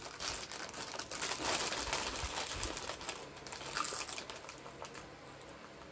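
Dry water crackers being bitten and chewed close to the microphone, a dense crackly crunching with some crinkling of the plastic cracker wrapper, thinning out in the second half.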